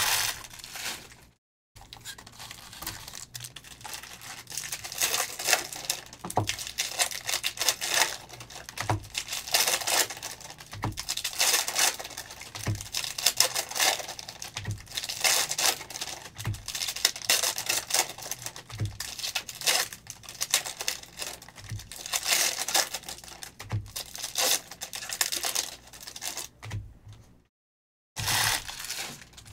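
2022 Panini Optic football trading-card packs being torn open, the wrappers crinkling, with soft low thumps about every two seconds.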